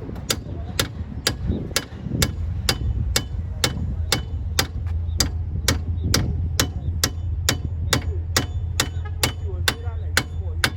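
Hammer blows on the new wheel hub and bearing assembly of a Chevrolet Impala, knocking it down into place, struck steadily at about two and a half blows a second over a steady low hum.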